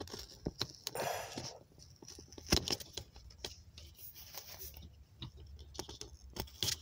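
Paper scratch-off lottery ticket being handled: scattered light clicks and brief rustling scrapes, the largest rustle about a second in and a sharp click a little past halfway.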